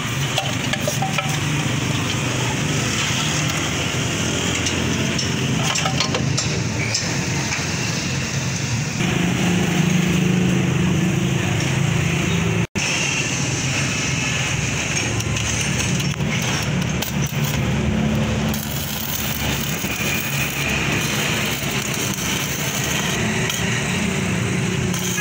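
A steady mechanical hum runs throughout, with a few light metal clinks and taps from tools on the motorcycle. It breaks off briefly at a cut about halfway through.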